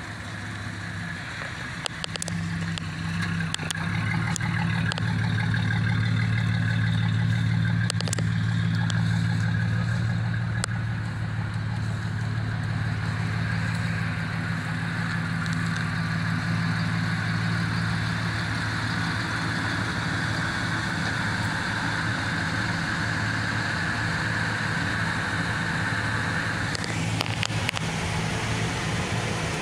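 Chevrolet Silverado pickup's engine idling steadily, with a steady high-pitched whine alongside that stops near the end. A few light clicks in the first third.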